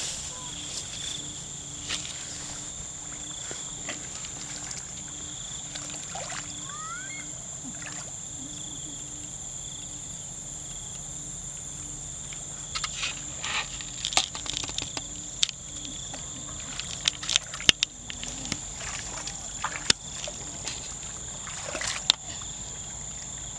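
Steady high-pitched insect chorus in a rice paddy, with water sloshing and splashing from about halfway on as hands grope through shallow muddy water for fish.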